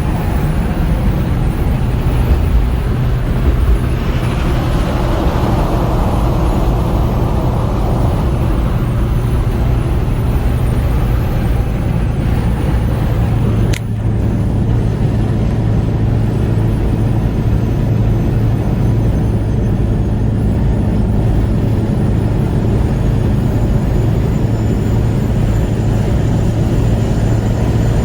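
Steady engine drone and road noise of a vehicle driving at highway speed, heard from inside it, with one brief click about halfway through.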